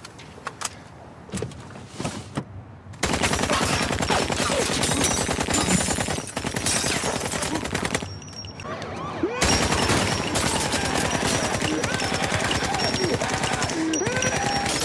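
Sustained automatic gunfire: a few scattered shots or clicks at first, then about three seconds in a dense, rapid stream of shots. The stream breaks off briefly near the middle and then resumes.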